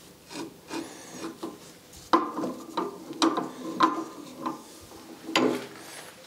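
Irregular metal scrapes and clicks from handling at a drill press: the cast exhaust manifold is shifted on the table and the step drill bit lined up over its stud hole, with the drill not running. The loudest scrapes come in a cluster about two to four seconds in, and one more near the end.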